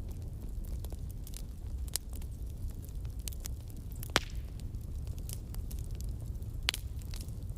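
Bonfire burning: a steady low rumble of the flames with irregular crackles and pops, two sharper pops about four seconds in and near the end.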